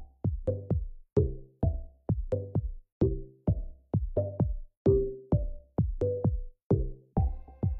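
Background electronic music with a steady drum-machine beat, about two beats a second.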